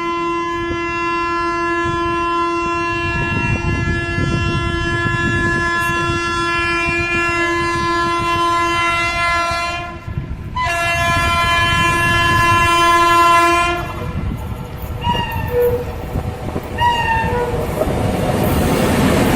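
A WAP-7 electric locomotive's horn sounds a long blast of about ten seconds, then after a brief break a second blast of about three seconds, followed by two short honks. Near the end, rushing noise from the train running through at speed builds and takes over.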